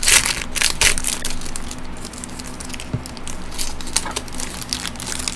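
Foil wrapper of a 2013 Topps Strata trading-card pack being torn open and crinkled by hand. The crackling is loudest in the first second, then goes on lighter and more scattered.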